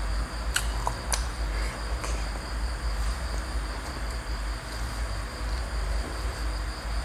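Steady high chirring of crickets over a low, constant rumbling hum of recording noise, with a few faint clicks in the first two seconds.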